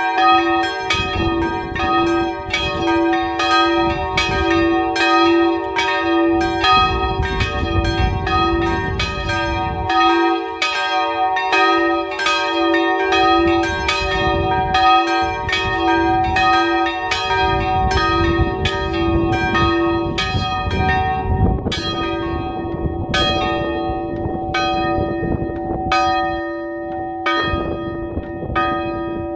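Three small church bells swinging and ringing together, their strikes overlapping in an irregular peal. The strikes grow sparser in the last third as the ringing slows.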